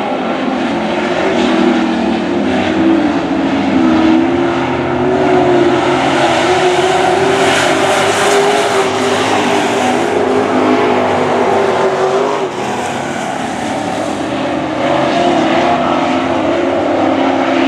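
Super Truck race trucks' engines running hard as the field laps the track, a continuous loud drone whose pitch wavers up and down as the drivers lift and get back on the throttle.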